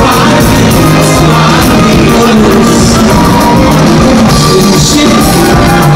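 Live band music played loud through a PA, with a man singing lead over a drum kit and electric guitar.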